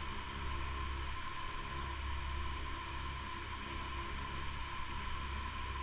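Orient remote-control LED fan running: a steady whoosh of moving air with a low hum and a faint steady whine.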